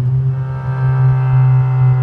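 Straight-piped exhaust of a Ford Fiesta Mk6 droning at steady revs, a single low, even hum.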